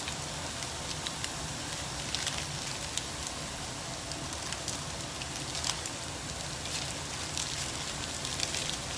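Chicken frying in a pan: a steady sizzle with scattered crackles.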